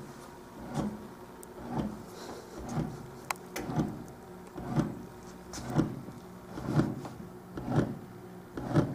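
Breadman bread machine just switched on, its kneading motor running in short pulses about once a second over a steady low hum at the start of its mixing cycle.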